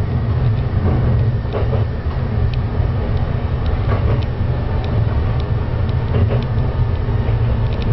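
Diesel railcar of the Yuri Kogen Railway running along the line: a steady low engine and wheel rumble with scattered, irregular clicks and knocks from the track.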